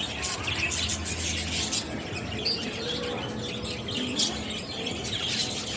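Birds chirping, with many short, high calls overlapping throughout.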